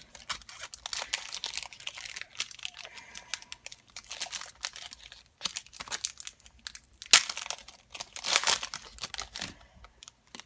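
A trading-card pack's wrapper crinkling and being torn open, with the cards handled, making irregular crackles throughout; a sharp louder crackle about seven seconds in and a denser burst about a second later.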